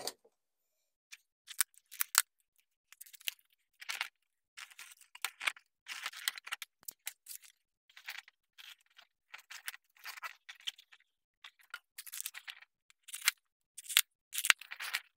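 Hands handling small decorations and glue dots while fixing them onto a balloon arrangement: irregular short rustles and crinkles, with a few sharp clicks.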